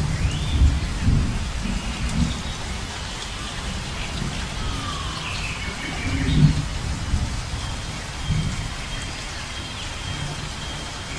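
Heavy rain falling steadily, with low rolls of thunder near the start, about six and a half seconds in, and again around eight seconds.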